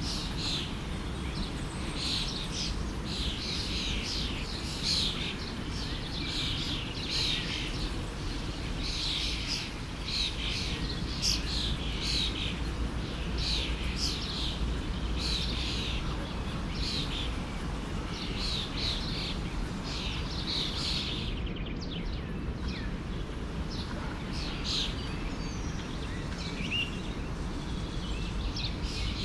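Birds chirping in rapid, repeated short calls over the steady rush of a forest stream; the calls thin out about two-thirds of the way through.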